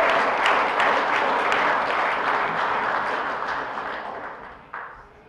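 Audience applauding, the clapping thinning out and dying away near the end, with one last clap just before it stops.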